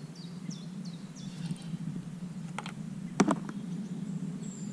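Small birds chirping in short, falling calls over a steady low hum, with two sharp clicks a little past halfway, the second louder.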